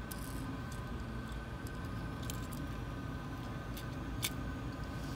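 A handful of sharp light clicks and taps from small screws and plastic 3D-printer extruder parts being handled, the sharpest about four seconds in, over a steady background hum.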